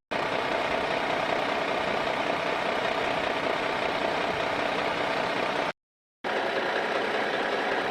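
A motor running steadily, a constant mechanical hum, broken by a sudden half-second of silence about six seconds in.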